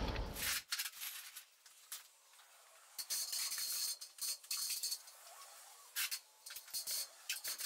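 Aluminium extension ladder being carried and stood against a wall: faint, intermittent light metallic rattling and clinking, in short stretches from about three seconds in.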